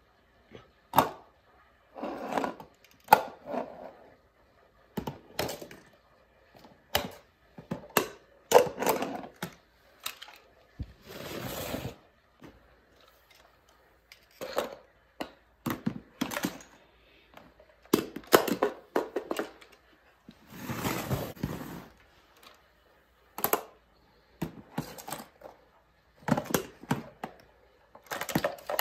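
Hard plastic clacks and knocks from a reacher-grabber tool gripping a toy mini trash bin, tipping it over a plastic wastebasket and setting it back on the tile floor, with the bin's lid flapping. Two longer rustling stretches, about 11 and 21 seconds in, as the bin's paper contents slide out into the basket.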